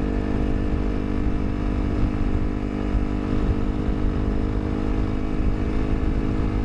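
Honda CRF250L's single-cylinder four-stroke engine running at a steady cruise, its note holding one pitch, over a low rumble from the ride along a gravel road.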